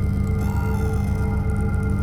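Dark ambient drone music from synthesizers: a dense, quickly pulsing low drone under steady higher held tones. A bright cluster of high tones enters about half a second in and fades out within about a second.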